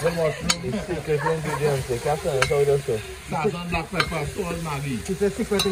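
Food sizzling in a pot as it is stirred, with a spoon knocking against the pot a few times. Voices talk in the background.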